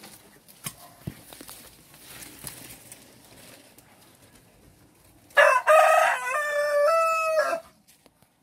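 A rooster crows once, a loud cock-a-doodle-doo about two seconds long that begins about five seconds in. A few faint knocks come before it.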